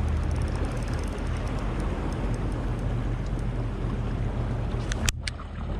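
Steady rushing wind and sea noise over a low steady hum, as on a small boat at sea, with two sharp clicks about five seconds in.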